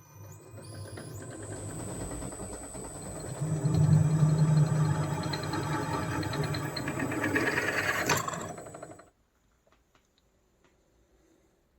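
Restored drill press starting up with a quickly rising whine, then running with a steady high whine and a rough mechanical rattle. It stops abruptly about nine seconds in.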